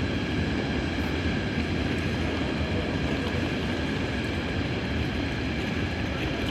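A train running at the platforms: a steady rumble with several faint steady whining tones above it.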